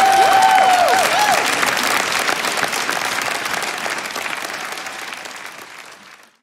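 Audience applauding, with a few voices cheering in the first second or so. The clapping fades away steadily and cuts off just before the end.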